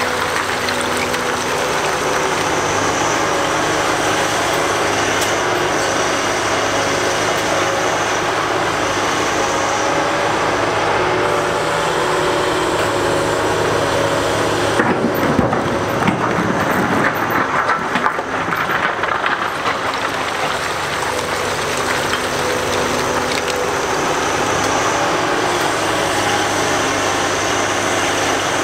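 A large Caterpillar excavator's diesel engine running steadily under working load. About halfway through, several seconds of rock clattering and scraping rise over the engine.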